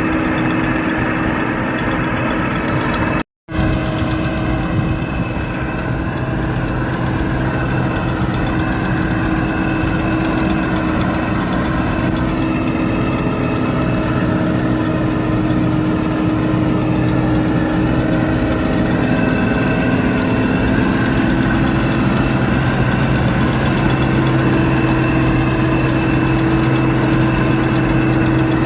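Combine harvester running steadily with a constant engine hum and machinery drone, broken by a momentary dropout about three seconds in.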